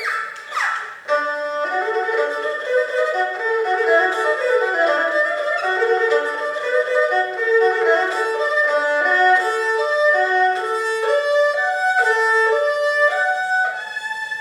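Erhu playing, with quick sliding glides in the first second, then a fast, even run of short stepped notes moving up and down, which fades near the end.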